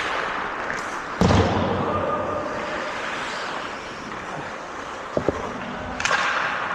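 Ice hockey rink play sounds. A loud thud with a deep boom comes about a second in, like a puck or player hitting the boards. Steady rink noise follows, with a sharp knock about five seconds in and a hissing scrape near the end, like skates stopping.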